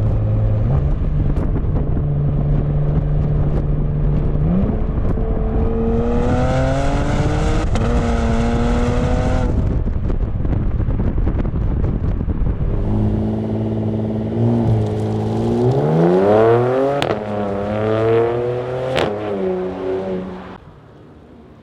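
Porsche Macan V6 running through a Soul Performance resonated muffler-bypass exhaust. It drones steadily, then rises in pitch under acceleration twice, the second pull climbing higher, with a brief sharp break near the end before the sound falls away.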